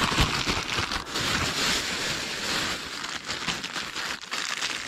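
Rustling and crinkling as a bag is handled and rummaged through, with many small irregular crackles and clicks.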